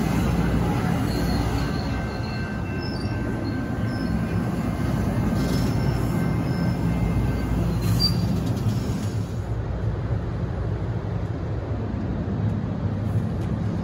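Bombardier MultiLevel commuter coaches of an exo train rolling past the platform: a steady rumble of wheels on the rails, with a few faint high wheel squeals in the first half.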